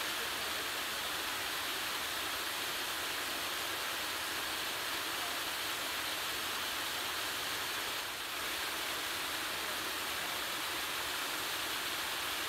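Steady rush of a rocky creek's flowing water, an even hiss without a break.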